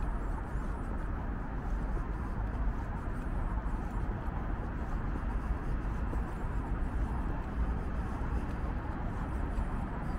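Steady outdoor ambience with a strong low rumble and no single event standing out.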